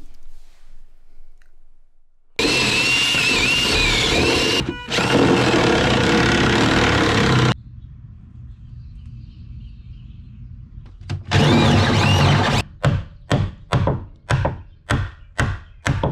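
Cordless drill boring through wooden framing: a long run of the motor under load with a wavering whine, broken briefly once, then after a pause another run and a string of short trigger bursts, about two or three a second.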